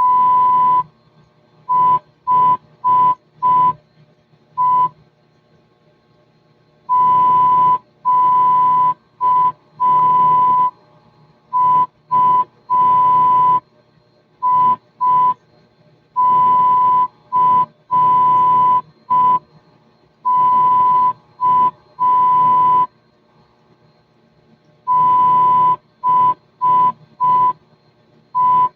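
Morse code: a steady high beep keyed on and off in short dots and longer dashes, grouped with pauses between characters, with a faint hum and hiss heard only while the tone is on.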